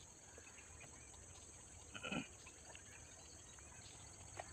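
Faint, steady insect chirring, with one short animal call about two seconds in.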